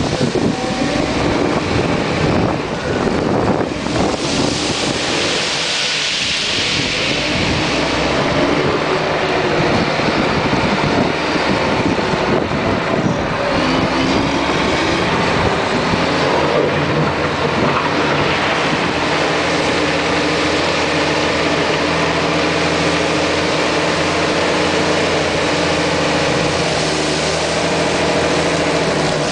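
Komatsu WA380-5H wheel loader's diesel engine running steadily as the machine drives and works, with the engine speed rising and falling around the middle.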